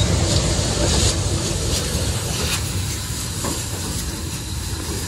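Heritage steam-hauled passenger train running on the rails, heard from aboard a carriage: a steady low rumble with a hiss and a few sharp clicks of the wheels, gradually getting quieter.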